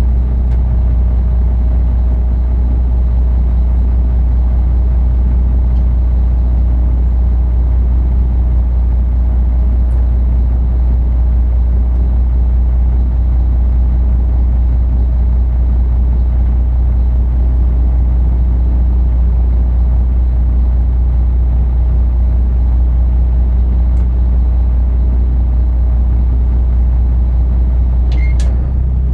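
Steady low drone of the cargo barge's engine running as the ship creeps forward. There is a brief sharp click near the end.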